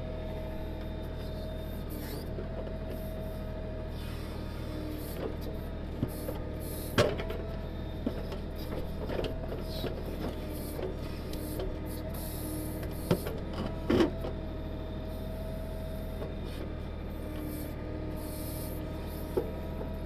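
Kioti DK6010 tractor's diesel engine running steadily while it powers the KB2485 backhoe, with a whine from the hydraulics that comes and goes as the arm moves. A few sharp knocks, the loudest about seven and fourteen seconds in, as the bucket digs into stony ground and picks up a rock.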